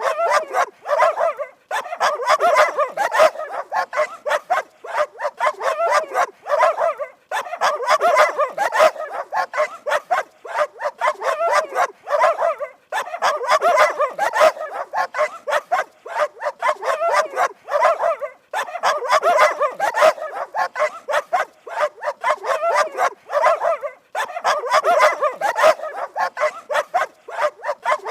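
Dogs barking rapidly and continuously, in stretches of about five seconds separated by brief pauses.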